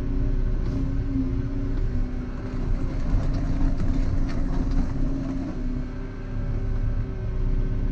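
Volvo EC140EL excavator's diesel engine running steadily under working load, with a wavering hydraulic whine. A patch of clatter comes about three to five seconds in.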